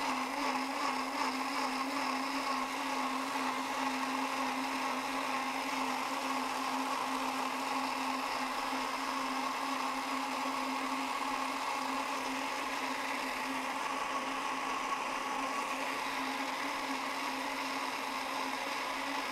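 High-powered countertop blender running steadily, pureeing cooked vegetables with raw spinach and basil into a creamy green soup. It switches off near the end and the motor winds down.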